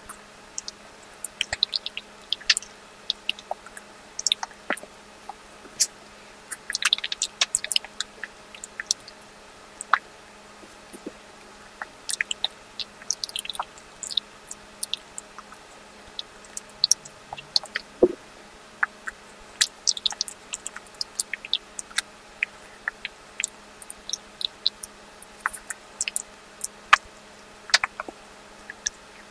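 Close-miked ASMR eating of ice cream: an irregular run of wet mouth clicks and smacks, with sharper clicks scattered throughout.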